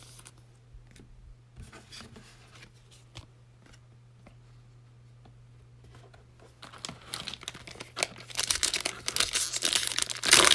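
Cellophane wrapper of a trading-card cello pack crinkling and being torn open. It starts about two-thirds of the way in and grows louder toward the end, after a stretch of only faint handling ticks.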